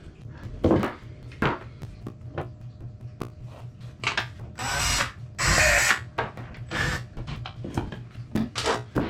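Knocks and clicks of a pipe clamp and screws being handled and fitted, with two short runs of a power drill about halfway through, fastening the clamp to the wall. A low steady hum runs underneath.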